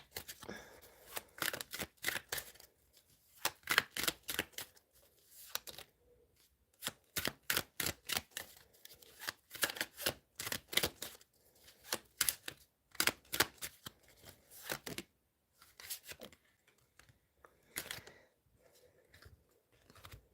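A deck of tarot cards being shuffled by hand: quick papery clicks and flutters in short runs, separated by brief pauses.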